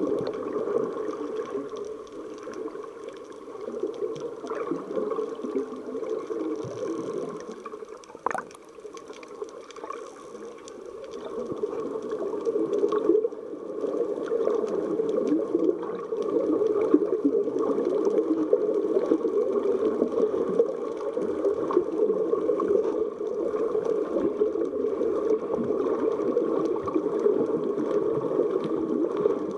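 Muffled underwater water noise picked up by a submerged action camera as a snorkeler swims: a steady watery rush that drops quieter for a few seconds near the middle, with one sharp click about eight seconds in.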